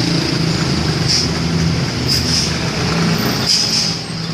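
Tour bus engine running steadily, with short hissing spurts of air about a second in, around two seconds and again around three and a half seconds.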